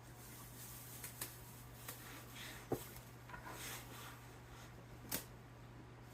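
Plastic pan covers rustling, with a few sharp clicks and light knocks, as they are stretched over loaf pans of bread dough.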